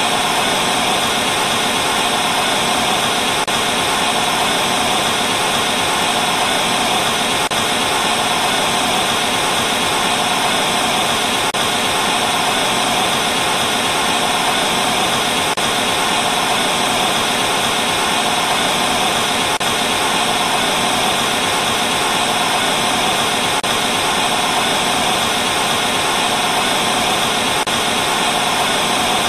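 TV static with no signal: a loud, steady, unchanging hiss, strongest in the upper middle of the range.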